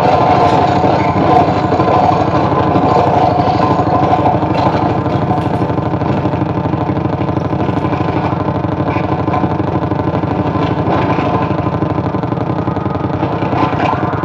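Experimental noise music: a continuous wall of heavily distorted electronic noise from a pedal and mixer rig, buzzing with a fast, engine-like pulse. Steady pitched tones sit on top of it, strongest in the first few seconds.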